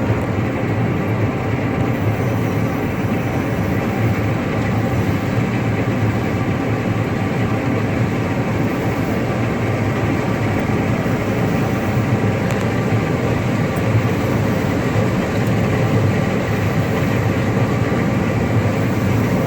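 John Deere 9610 combine running steadily while harvesting corn: a constant engine and machinery drone with a faint steady whine above it.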